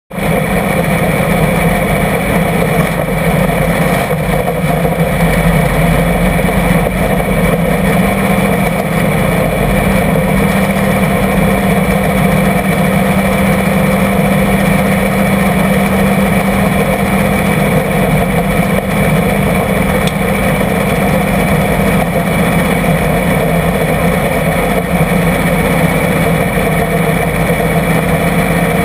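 Small-block V8 of a supermodified race car running steadily at low pace-lap speed, loud from the open cockpit, with no big revs.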